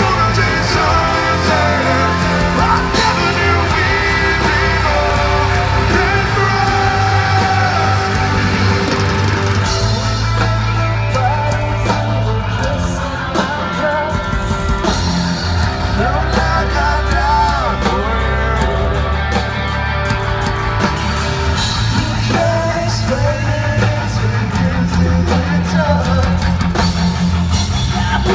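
A rock band playing live, with drums and electric guitar under a male and a female singer singing a duet.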